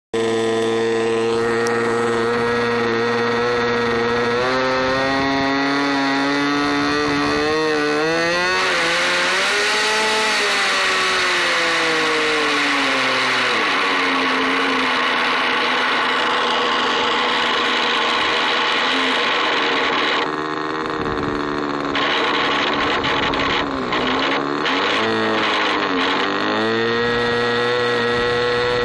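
ASP .32 two-stroke glow model engine running, with a sound the owner calls strange. Its engine speed holds steady for several seconds, climbs and then falls away about ten seconds in, and dips and recovers a few more times before settling back to a steady note near the end.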